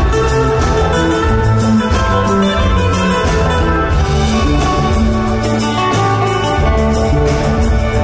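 Live band playing an instrumental passage with no singing: held keyboard chords over bass and drums, with cymbals ticking steadily on top.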